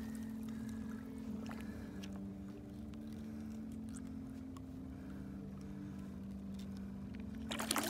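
Water splashing about seven and a half seconds in as a large blue catfish held in a lip grip is worked at the side of the boat, over a steady low hum.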